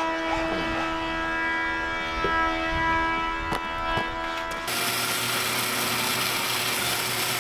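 A steady machine hum with a few sharp knocks, then, about two-thirds of the way through, a power saw running with a steady, hissy noise.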